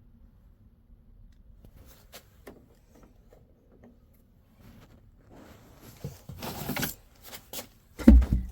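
Handling noises: scattered clicks and rustling, then a louder rushing scrape, ending in a heavy thump near the end.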